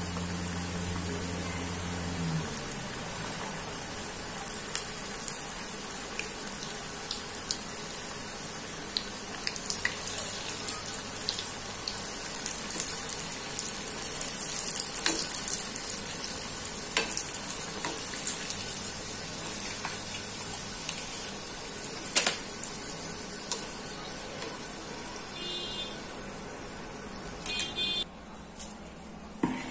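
Patti samosas deep-frying in very hot oil in a kadhai: a steady sizzling hiss with scattered crackles and pops. It cuts off near the end.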